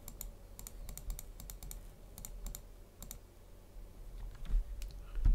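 Irregular clicking at a computer, small runs of quick sharp clicks with pauses between, as image squares are picked in a captcha. A low dull thump comes near the end.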